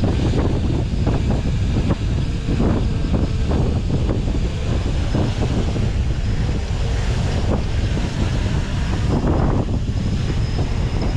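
Strong wind buffeting the microphone: a heavy, steady rumble with gusts flaring every second or two.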